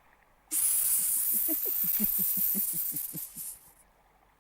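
A cartoon adder's hiss: a loud, even hiss that starts about half a second in and fades out after about three seconds, with a quick run of short, soft low pulses under its middle.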